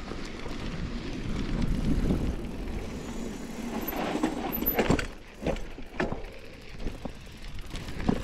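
GT Aggressor Pro mountain bike rolling over a rough dirt trail: a steady rumble and crunch of tyres on dirt and gravel, with several sharp knocks and rattles from the bike over rocks in the second half.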